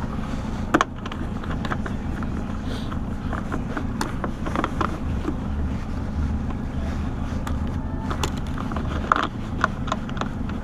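Boat motor running steadily at trolling speed, with scattered clicks and knocks as a fishing rod is set into a rod holder.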